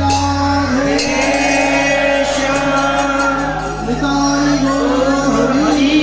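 Bengali devotional kirtan singing of an arati hymn, voices over a steady held drone, with a few sharp percussion strikes in the first second.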